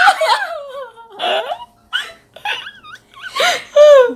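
Young women laughing and squealing without words, ending in a loud, high-pitched cry shortly before the end.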